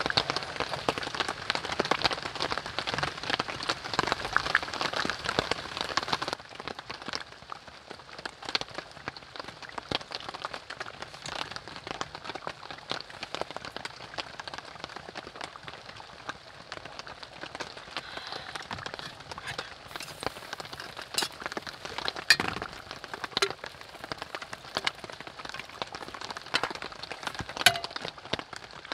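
Rain pattering steadily on a tarp shelter overhead, heavier for the first six seconds or so and lighter after. A few sharp clinks of a metal ladle against a stainless stockpot stand out near the end.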